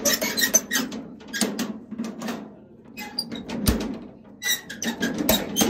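Rusty barrel bolt being slid shut on an iron grille door: metal squeaking and scraping, with a run of sharp clicks and a couple of heavier knocks.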